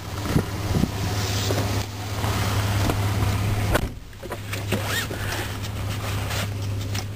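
Someone climbing into a pickup truck's driver's seat: rustling and handling noises, then the door shutting about four seconds in, after which the sound turns duller. A steady low hum from the truck's idling engine runs underneath.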